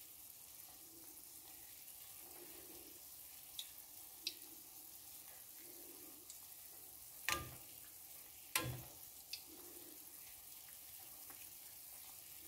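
Gulab jamun dough balls sizzling in hot oil in a steel kadhai, a faint steady frying hiss. A few sharp taps as the wire-mesh skimmer knocks against the pan, the two loudest about seven and eight and a half seconds in.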